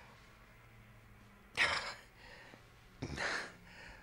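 An injured man breathing out hard twice, about a second and a half apart, strained as if in pain, over a faint low hum.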